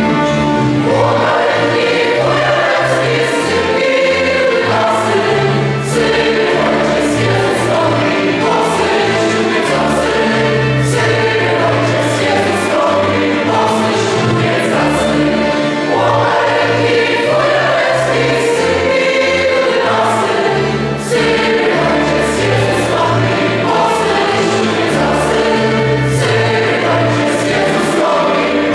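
Choir singing a Polish Christmas carol (kolęda) with instrumental accompaniment, a bass line stepping from note to note underneath.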